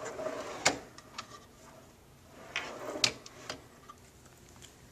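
A wooden roll-out tray in a base cabinet slides on its metal drawer runners, ending in a sharp click at the stop, then slides back the other way about two seconds later and closes with another click.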